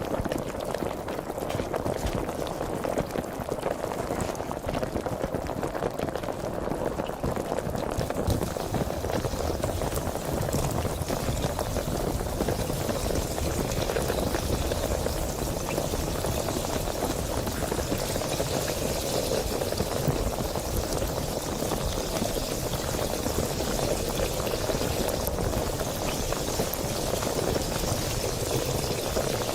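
Sparkling water fizzing: a steady, dense crackle of bubbles, its higher hiss growing a little stronger about eight seconds in.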